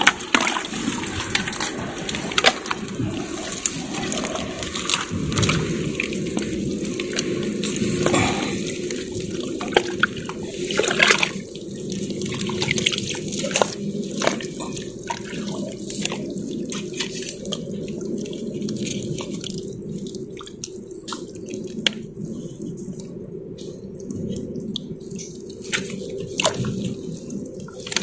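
Wet mud squelching and sloshing as a bare hand and arm dig and grope deep in a waterlogged mud crab burrow, with many short, irregular wet smacks and clicks.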